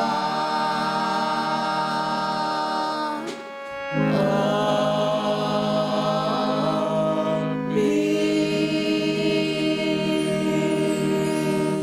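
Church youth choir closing a Yoruba hymn on long held chords: one chord held for about three seconds, a brief dip, then two more sustained chords, the last changing about eight seconds in.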